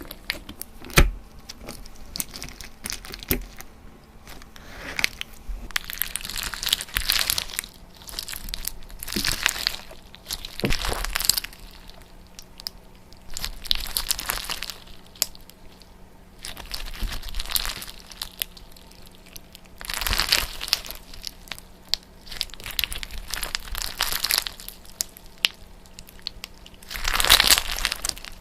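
Repeated crunching and crinkling noises in separate bursts of about a second each, every one to three seconds, over a faint steady hum.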